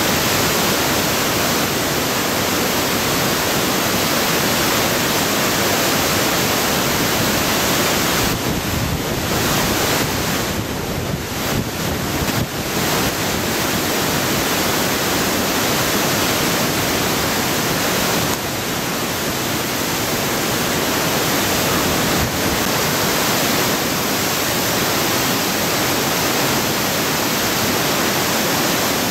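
A typhoon-swollen mountain river rushing in full flood, mixed with storm wind and rain buffeting the microphone: a loud, steady rush that eases a little for a few seconds about a third of the way in.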